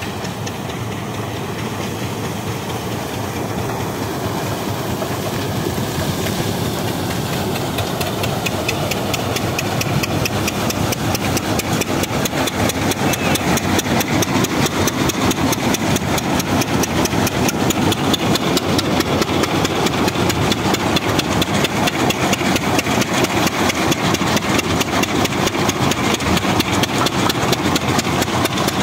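Single-cylinder stationary diesel engine running steadily with a fast, even chug, belt-driving a groundnut thresher whose drum and sieves add a rattling, rubbing noise. The sound grows louder over the first ten seconds or so, then holds steady.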